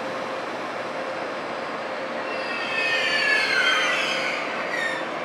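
Intercity train of a red ÖBB Taurus electric locomotive and coaches braking to a stop, with a low steady rolling noise. About two seconds in, a loud brake squeal sets in, several high tones sliding down in pitch together as the train slows, and it dies away near the end.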